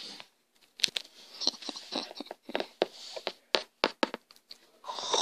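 Scattered light clicks and taps of plastic toy pony figures being handled and set down in a plastic toy bunk bed, with soft hand rustling between them.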